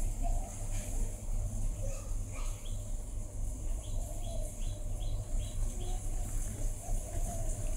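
A quick run of about five short, high chirping calls around the middle, over a steady high hiss and a low rumble.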